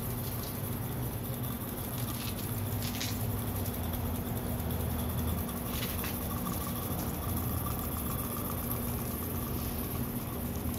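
Small gas-fired live steam beam-engine locomotive running along its track with a steady hiss and a low hum, and a few brief clicks in the first half.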